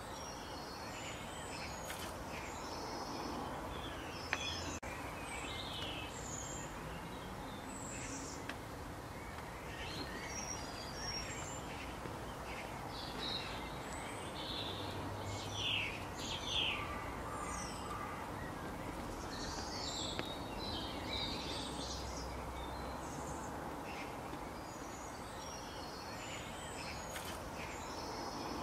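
Many small birds chirping and calling on and off over a steady hiss of background noise, with a few sharp ticks.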